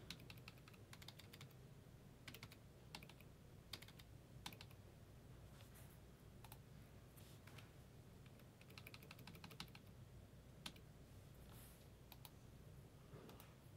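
Faint typing on a computer keyboard: scattered clicks, some in quick runs, over a low steady hum.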